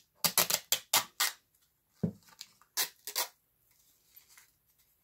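Packaging of a dessert cup being pulled open by hand: a quick run of sharp crackles and clicks in the first second and a half, then a few scattered ones.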